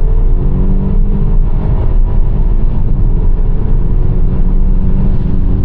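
Turbocharged Kia Stinger engine pulling hard under full acceleration, tuned with a JB4 piggyback for more boost. The engine note climbs over the first two seconds, then holds steady.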